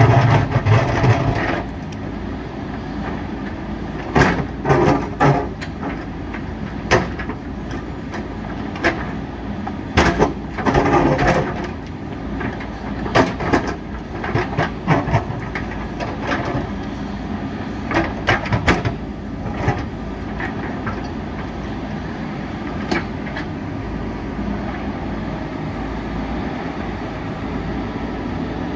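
JCB 3DX backhoe loader's diesel engine running steadily, with irregular bursts of knocking and scraping as the bucket works against rock.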